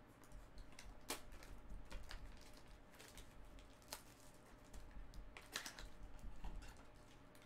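Hands opening a trading-card pack: a small cardboard pack box is pried open and the plastic wrap around the cards crinkles. The result is a faint, irregular scatter of crackles and taps.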